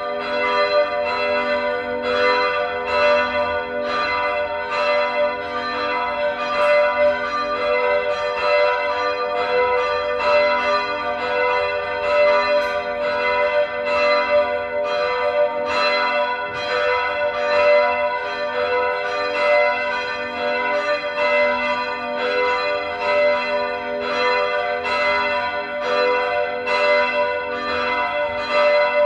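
Several church bells ringing together in a full peal, their strokes overlapping so the tones ring on between strikes without a break. This is the ringing that opens a church service.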